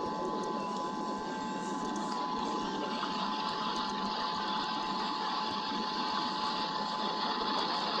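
Steady rain hiss on an eagle nest-cam microphone during a thunderstorm, with a thin steady electronic tone running underneath.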